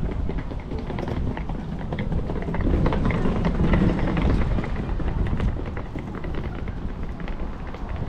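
Outdoor walking ambience: footsteps ticking along a path under a low rumble of wind on the microphone, which swells to its loudest about three to four seconds in.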